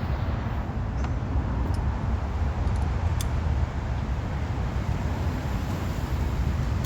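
Steady low rumble of a running vehicle, with a few faint clicks about one, two and three seconds in.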